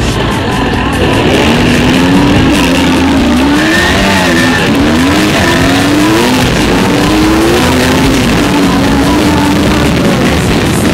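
Dirt bike engine running under way on a trail, its pitch rising and falling again and again as the throttle is worked, over steady wind and riding noise.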